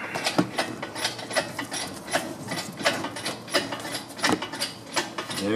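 Engine hoist lifting a cylinder head off a 6.5 turbo diesel: a run of sharp metallic clicks and clanks, about two to three a second.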